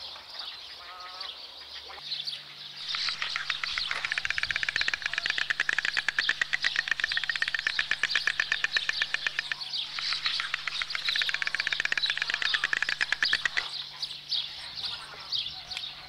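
White storks clattering their bills at the nest, the greeting display: a rapid, even run of clicks in two long bouts, with a short break near the middle.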